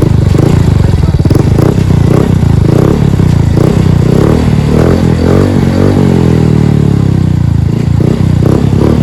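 Yamaha Mio Soul i 125 scooter engine running loud through an aftermarket Apido V3 exhaust pipe. The engine note pulses in the first half, then its pitch shifts from about five seconds in as the revs change.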